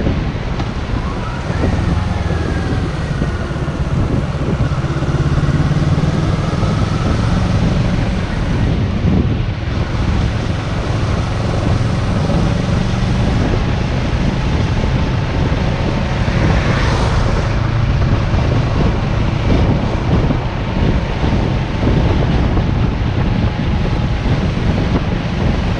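Motorcycle engine running steadily at road speed, its pitch gliding up and down a little as the throttle changes, under wind rushing over the microphone. A brief swell of hiss comes about two-thirds of the way through.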